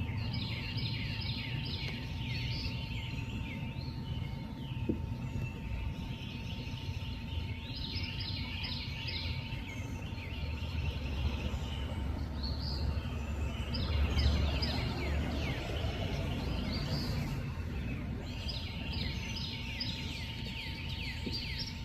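Night nature ambience: four bursts of rapid chirping trills, each a quick run of short falling notes, over a low rumble that swells in the middle, with a faint steady hum underneath.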